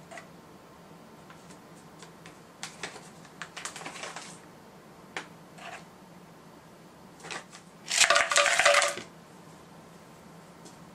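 Light taps and scrapes of a wooden spoon adding cocoa powder onto chopped chocolate in a clear plastic blender jar, then ice cubes tumbling in and clattering against the plastic, the loudest part, about eight seconds in.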